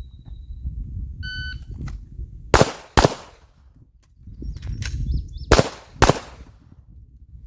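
Shot timer beeps once, then a handgun fires two shots about half a second apart. After a pause of about two and a half seconds for a magazine reload, with a couple of small clicks, it fires two more shots about half a second apart.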